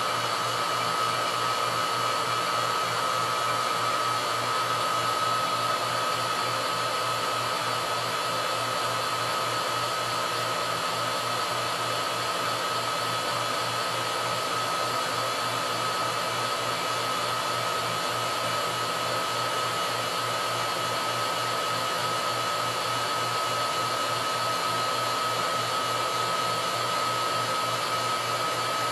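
Vacuum pump running steadily: a continuous machine noise with a steady high whine and a low buzz underneath.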